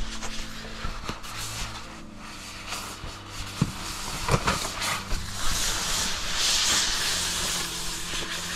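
Scraping and rustling of clothes and gear against rock as someone squeezes through a narrow cave passage, with a few sharp knocks and a louder stretch of hissing scraping about two-thirds of the way through.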